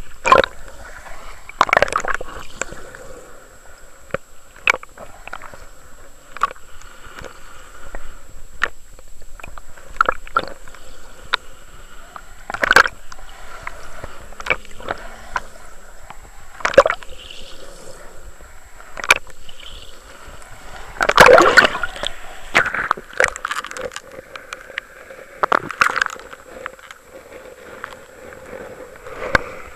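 Muffled sloshing and gurgling of seawater recorded by an underwater camera, broken by irregular sharp clicks and knocks, with a louder flurry of knocks a little past two thirds of the way through.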